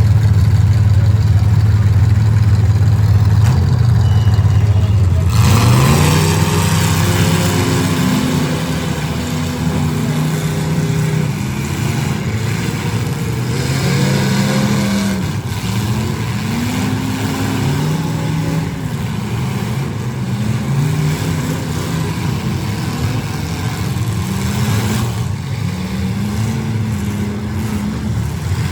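Several full-size demolition derby cars' engines: a steady low drone for about the first five seconds, then engines revving over and over, their pitch repeatedly rising and falling.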